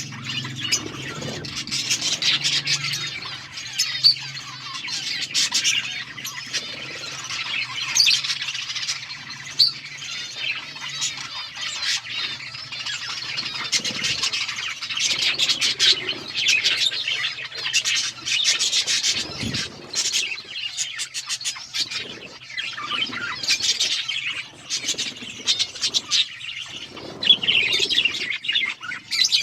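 Budgies chirping and chattering, many overlapping high calls going on without a break.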